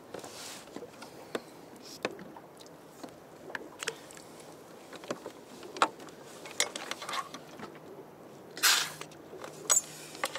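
Light clicks and knocks of fishing gear handled aboard a kayak, scattered irregularly, with one short loud rush of noise a little before the end.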